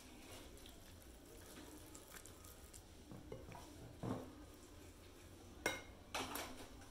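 Wire whisk mixing flour and water into a batter in a bowl: quiet stirring, with a few sharp clinks of the whisk against the bowl in the second half, the loudest about a second before the end.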